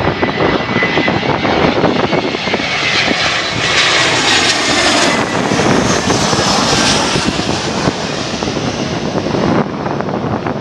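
Airliner's jet engines passing close by on landing approach: a loud rush of engine noise that swells to its peak mid-way, with a whine falling in pitch as the aircraft goes past.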